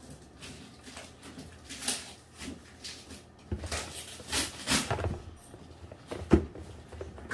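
Kitchen items being handled: scattered, irregular clicks and knocks, with a few duller thuds in the middle and near the end.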